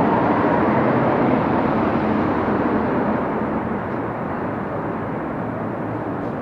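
Steady rumble of passing road traffic, easing off a little after about three seconds.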